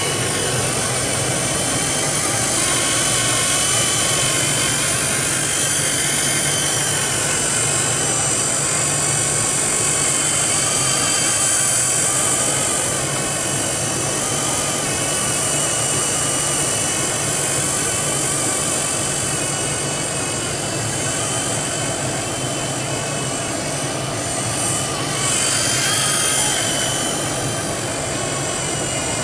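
Blade mCPX micro RC helicopter in flight: its motor and spinning rotors give a steady high-pitched whine that wavers slightly in pitch as it manoeuvres, with a brief swell in loudness about three-quarters of the way through.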